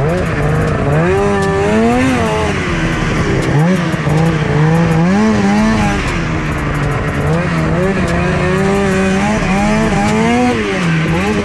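Snocross snowmobile's two-stroke engine on a track, its pitch repeatedly climbing and dropping as the throttle is opened and closed through the jumps and turns.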